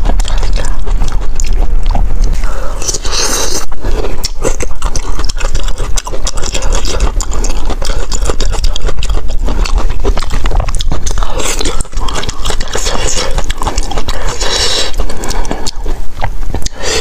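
Close-miked eating sounds of wide glass noodles and rice being chewed, with several louder slurps.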